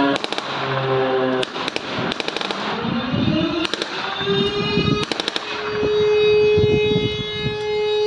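Short bursts of rapid blank gunfire from a battle reenactment, several volleys in the first five seconds. Under them an air-raid siren wails, rising in pitch around the middle and then holding a steady tone.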